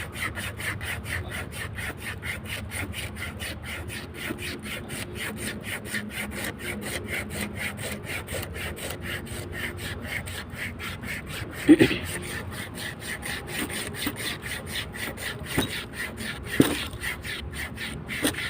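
Rapid rhythmic scraping strokes, about five a second, as the smooth surface of a power cable is abraded to make it rough for the termination. Two louder knocks come about twelve and sixteen and a half seconds in.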